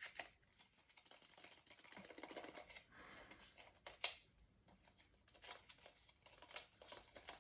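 Eyeliner packaging being handled: faint rustling and crinkling, with one sharp click about four seconds in.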